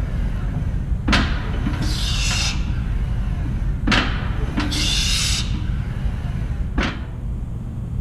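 Deadlift reps with a plate-loaded barbell: the plates knock down on the gym floor three times, about three seconds apart, the first two knocks each followed by a short hiss. A steady low hum runs underneath.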